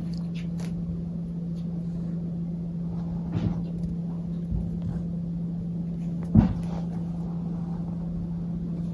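Steady low hum, with a soft knock about three and a half seconds in and a louder thump about six and a half seconds in, as a cat shifts in a cardboard shoebox and jumps out of it onto the floor.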